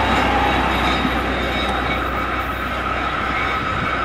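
Diesel track recording car (Kereta Ukur Jalan Rel) running along the rails as it moves away on a curve: a steady low engine drone with thin, steady high-pitched wheel squeal, fading slightly.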